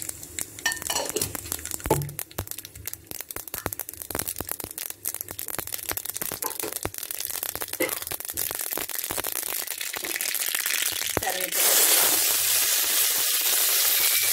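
Mustard seeds crackling and popping in hot oil in a small kadai as they splutter during tempering, many sharp pops. About eleven and a half seconds in, a loud steady sizzle starts as green ingredients hit the hot oil.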